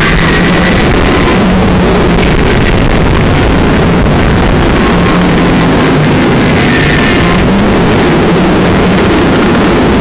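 Steel roller coaster train of a Bolliger & Mabillard inverting coaster running at speed through its elements: loud, steady wind rushing over the microphone together with the rumble of the train's wheels on the track.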